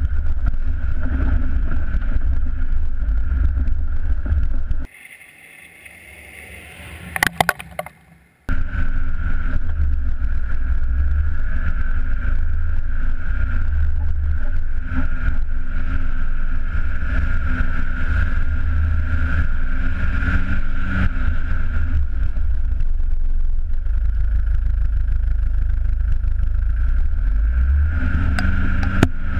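Nissan Terrano's TD27 2.7-litre turbo-diesel driving hard as the car slides on clay, heard through a side-mounted camera housing with heavy wind rumble. About five seconds in the sound drops away for about three seconds, with a few clicks, then returns.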